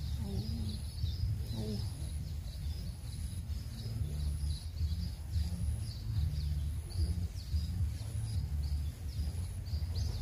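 Wind buffeting the microphone as an uneven low rumble, with birds chirping over and over.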